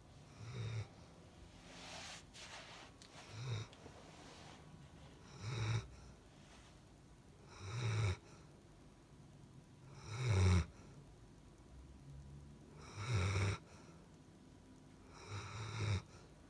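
Slow, regular snoring: about eight snores, one every two to three seconds, each a short low rumble with a breathy hiss.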